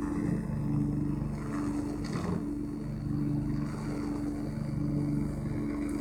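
Tabby cat purring steadily while having its chin scratched, the purr shifting with each breath in and out about every second and a half. A brief scratchy noise about two seconds in.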